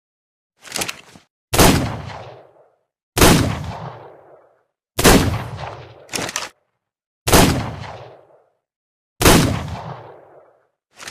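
Revolver gunshot sound effect: five shots about two seconds apart, each with a long decaying echo, with shorter sharp sounds in between.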